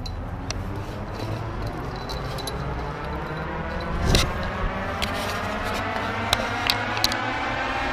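Footsteps through tall grass and clicks from a hand-held camera being handled, with a bump about four seconds in, over a steady rushing noise that slowly sweeps upward in pitch.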